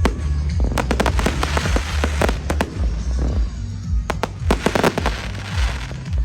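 Aerial fireworks going off in quick volleys of sharp bangs and crackles, thickest about a second in, around the middle and again about four to five seconds in, with music playing underneath.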